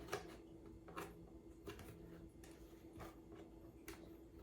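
Faint, scattered taps and clicks from cardboard panels of a cat scratcher box being handled during assembly, about six in all, over a faint steady hum.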